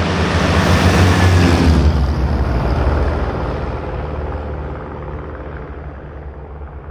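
Five Morane-Saulnier Rallye light aircraft passing low overhead in formation: the drone of their piston engines and propellers swells to a peak about a second in, drops in pitch as they go over, then fades away.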